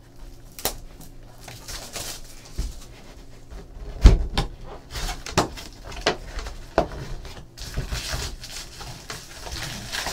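Plastic shrink wrap crinkling as it is stripped off a 2014 Bowman football trading card box, then the cardboard lid flipped open and foil packs handled, with scattered knocks on the table, the loudest about four seconds in.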